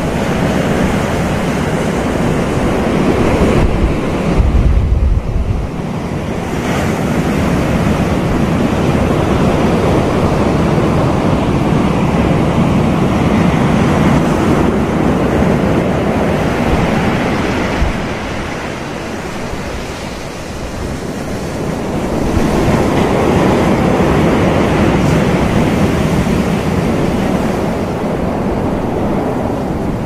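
Ocean surf breaking on a sandy beach and washing up the shore as a continuous, surging hiss that eases for a few seconds about two-thirds of the way through. Wind buffets the microphone with a low rumble about four seconds in.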